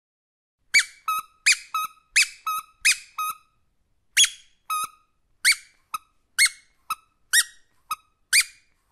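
A rubber squeaky dog toy squeezed again and again in quick pairs: a loud high squeak, then a shorter, lower one, with a brief pause about halfway.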